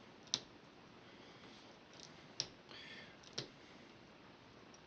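Three sharp clicks of a small hand tool working at the dial cord and its fittings, about a second apart, with a faint scratching between the second and third.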